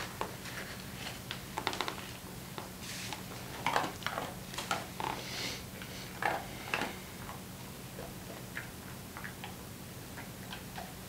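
Faint, irregular clicks and small taps of a DSLR camera being handled in the hands, over a steady low hum.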